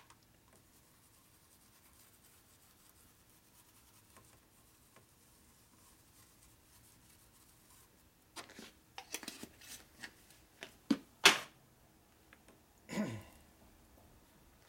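Hands handling a freshly sealed gasket on a workbench: after several seconds of quiet, a run of small scrapes, rustles and clicks, the sharpest click a little past the middle and a longer scrape near the end as the gasket is lifted.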